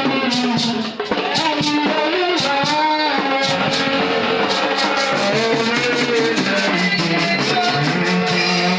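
Praise-and-worship band music with guitar over a steady drum beat, briefly dipping about a second in.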